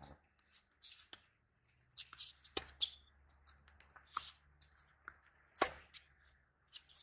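Tennis rally on a hard court: a series of sharp pops from the ball coming off racket strings and bouncing on the court. The loudest pop, the near player's forehand, comes about five and a half seconds in.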